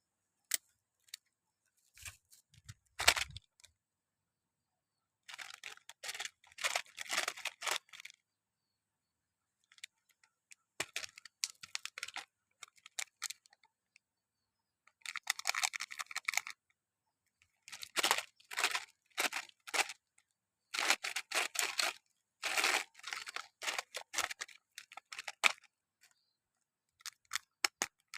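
Plastic candy wrappers crinkling and tearing open, in crackling bursts of one to several seconds separated by silent pauses.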